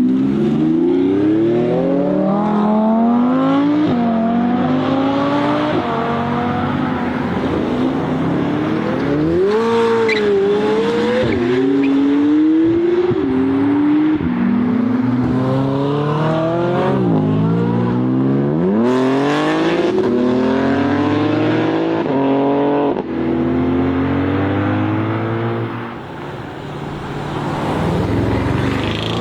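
Supercar engines accelerating hard and revving, the pitch climbing steeply and dropping back again and again as the gears change.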